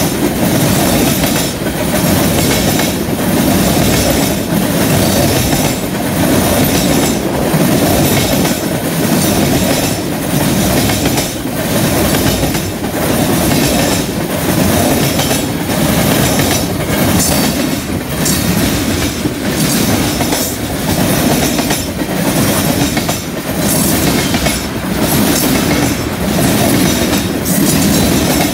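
Freight cars of a passing train, mostly tank cars and a covered hopper, rolling by close up: steel wheels rumbling on the rails, with a regular clack over the track about every second.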